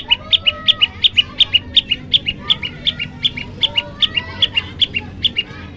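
Common tailorbird singing a fast, even run of short double notes, a high note followed by a slightly lower one, about three pairs a second, breaking off near the end.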